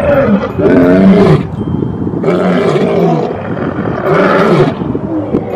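Male lions roaring: about four long roars in a row, each rising and then falling in pitch, with short pauses between them.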